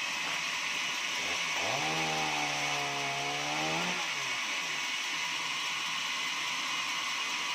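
Sawmill running steadily, a continuous high machine whine and hiss. About one and a half seconds in, a lower pitched hum with many overtones glides in, holds for about two seconds, then glides away.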